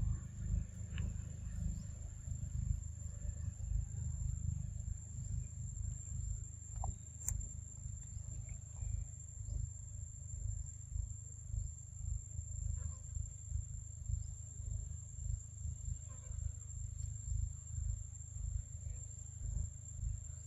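Forest ambience: a steady high-pitched insect call held on one tone throughout, over a low, fluttering rumble, with a few faint clicks.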